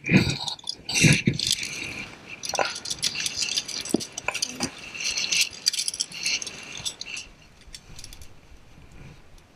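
Via ferrata lanyard carabiners and gear clinking and rattling on the steel safety cable as a climber moves along it: a run of small metallic clicks and jangles that thins out near the end. A couple of heavier bumps come in the first second or so.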